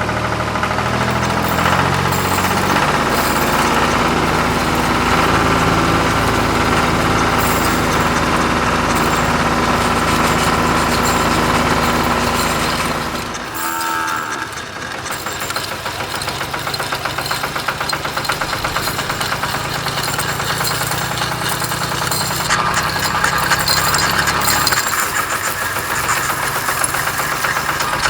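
Engine idling with a fast, steady knocking beat; its sound changes about halfway through, after a brief dip.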